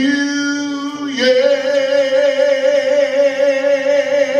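A man singing unaccompanied into a handheld microphone: he holds a lower note for about a second, then jumps up about an octave to a long high note held with vibrato.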